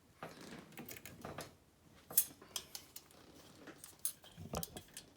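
Light metallic clicks and rattles as the parts of an Oliver No. 3 typewriter are handled, with the sharpest click about two seconds in.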